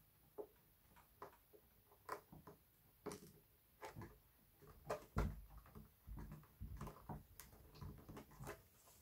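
Faint, irregular clicks and light knocks of small plastic and metal parts being handled, the sounds of tinkering with a turntable lid hinge.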